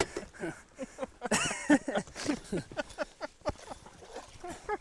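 Short, excited voices of men in the boat while a muskie is being fought at boatside; the sounds are indistinct and broken up, not full sentences.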